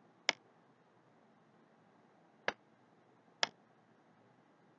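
Three sharp, separate clicks of a computer mouse button, spread over a few seconds, as letters are drawn on screen; otherwise quiet room tone.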